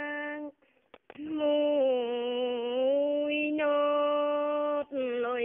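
A woman singing a Dao ethnic folk song in the antiphonal hát đối style, with no accompaniment heard: long held notes with slow slides in pitch, broken by a short pause for breath about half a second in, and quick ornamented turns near the end.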